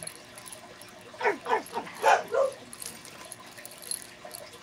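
A house dog barking at someone at the door: about five short barks in two quick bursts, starting about a second in.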